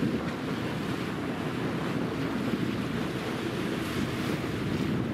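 Steady wind rumble on the microphone of a boat under way, with water rushing along the hull.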